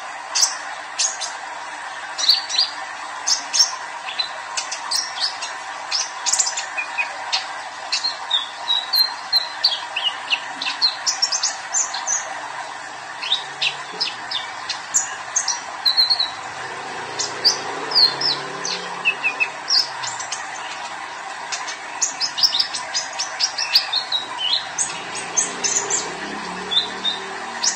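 A young male kolibri ninja, a sunbird, singing energetically in its cage: rapid runs of short, high chirps and twittering notes, some sliding in pitch, with brief pauses between runs.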